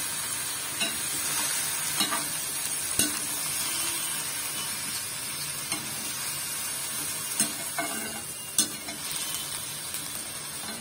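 Steel ladle stirring pumpkin pieces in a kadai of hot oil, spices and freshly added water: a steady sizzle with scattered sharp knocks of the ladle against the pan.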